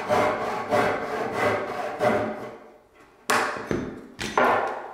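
Wood being worked by hand: a few rhythmic rubbing, sawing-like strokes on a pine skirting board, then a short pause and several sharp knocks of wood on wood.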